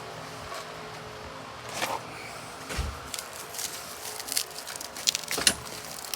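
Plastic bubble wrap being pulled off a new lawnmower's handle: irregular crinkling and rustling with a few sharper knocks of handling.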